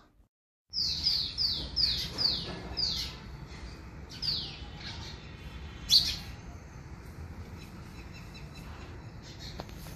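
A bird calling: a quick run of high, downward-sliding chirps, two to three a second, fading after about four seconds, then one more sharp chirp.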